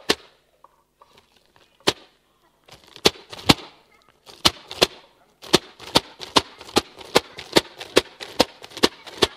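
Dull thumps of a hand-struck vortex cannon, a plastic drum with a stretched membrane, each hit firing a vortex ring. Single hits at first, then pairs, and from about halfway a quick regular run of about three thumps a second.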